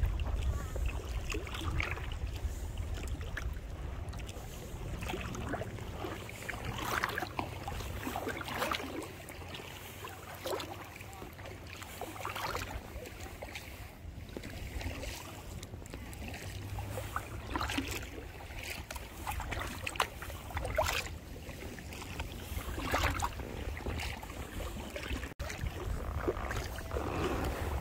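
Kayak paddle strokes splashing in the lake every second or two, over wind rumbling on the microphone.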